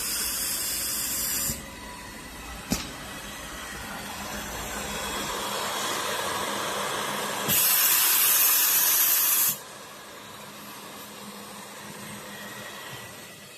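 Edge banding machine running, with two loud bursts of hissing, one lasting about a second and a half at the start and another about two seconds long near the middle, and a sharp click about three seconds in.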